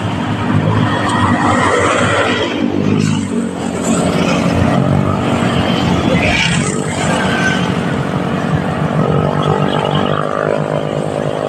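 Road traffic: cars and motorcycles driving past on a highway, with a steady engine hum and louder swells as vehicles go by.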